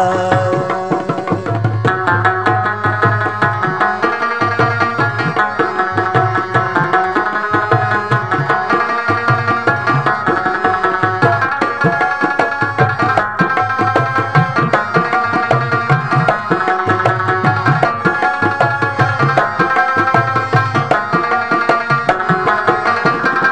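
Instrumental interlude of a Balochi ghazal with no singing: a drum keeps a steady, repeating rhythm under a melodic instrument playing held notes.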